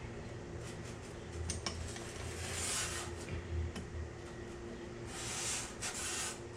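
Metal hand tools and clamp hardware clinking and scraping as they are handled: a few small clicks about a second and a half in, then two longer scraping rustles, one in the middle and one near the end.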